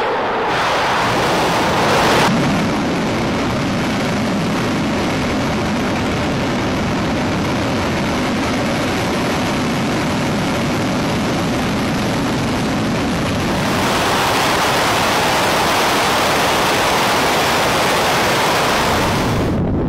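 Delta IV Heavy rocket's three first-stage engines firing through ignition and liftoff: a loud, continuous, dense rumbling rush. The tone shifts abruptly about two seconds in and again around fourteen seconds, where the sound is cut.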